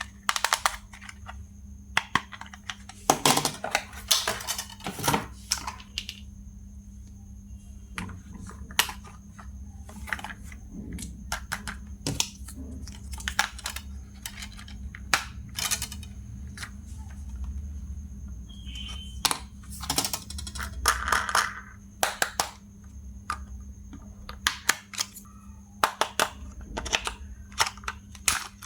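Irregular clicks, taps and rustles from handling plastic toy packaging and toy parts during unboxing, over a steady low hum.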